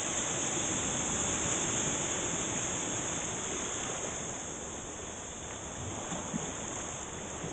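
Shallow surf: small broken waves washing and fizzing over a sandy shore in a steady rush, easing a little after about four seconds as the whitewater spreads out.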